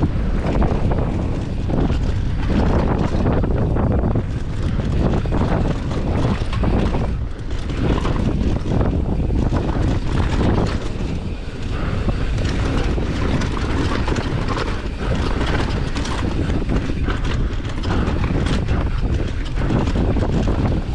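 Wind buffeting the microphone at speed over the steady rumble of knobby tyres on rocky dirt, with the Commencal Meta AM 29 mountain bike rattling and clattering through chunky terrain.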